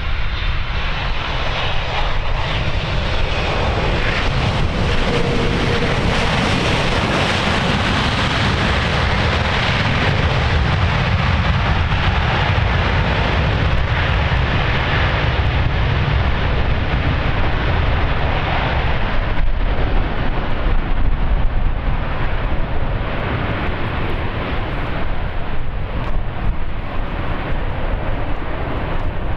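Boeing 767-300ER twin jet engines on a landing, giving a loud, steady rush of jet noise over a heavy low rumble that swells slightly a little past the middle.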